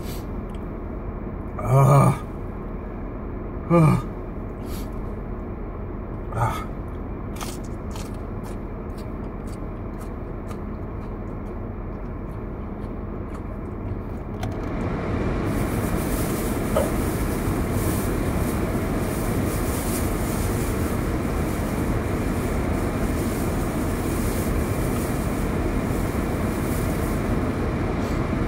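A man gasping twice in pain from the burn of habanero peppers, with a softer breath a couple of seconds later. About halfway through, a steady rushing noise starts up inside the car and runs on.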